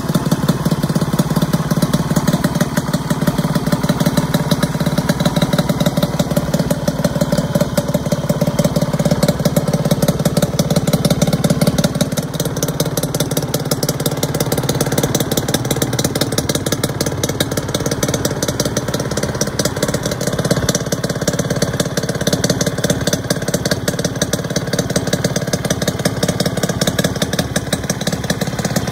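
Suzuki RG50Γ's 49cc single-cylinder two-stroke engine idling steadily with a fast, even beat, running through a custom heat-wrapped expansion-chamber exhaust.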